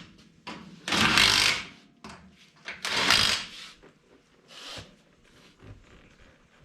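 Two short bursts of a power tool, each under a second, about a second in and about three seconds in, followed by a fainter short burst and light clatter.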